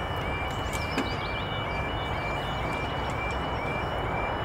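A railway level crossing's audible warning alarm sounds its two-tone yodel, repeating steadily as the barriers lower. A single knock comes about a second in, and a few bird chirps are heard over a low background rumble.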